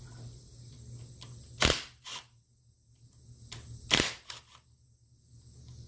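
Two sharp cracks about two seconds apart, each followed by a smaller click: small engine bolts snapping loose under a wrench.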